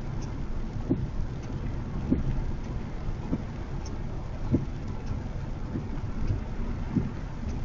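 Honda HR-V e:HEV RS driving in the rain: a steady low rumble of road and rain noise, with a soft thump repeating about every second and a quarter.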